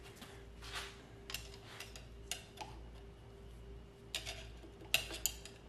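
Scattered light metallic clicks and ticks of a small steel hand tool prying at the fork seal snap ring in the fork slider, working it out of its groove; the sharpest clicks come about four to five seconds in.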